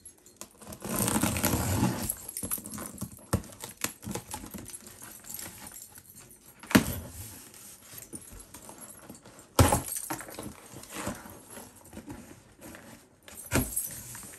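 Unpacking a large parcel by hand: a burst of rustling about a second in, then a few sharp knocks spread through the rest.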